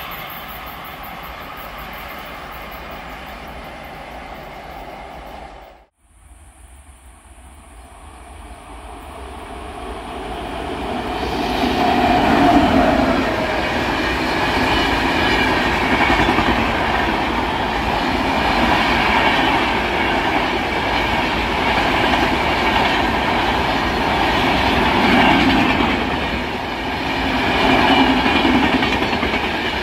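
Indian express train coaches running past at speed, the wheels clattering over the rail joints. One pass cuts off about six seconds in; the next train's sound then builds over several seconds to a loud, steady run of wheel noise.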